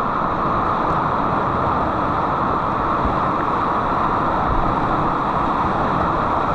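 Steady rush of whitewater rapids churning around a kayak, heard from a camera mounted on the boat.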